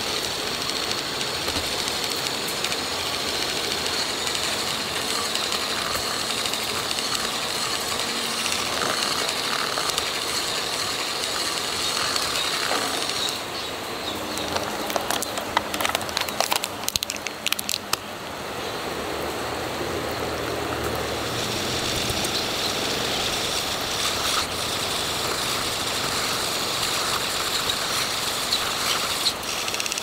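Small battery-powered hand whisk running steadily in cake batter in a paper cup. It stops about 13 seconds in, for a few seconds of crackling clicks as a paper lid is peeled off a cup, then runs again in the next batch of batter.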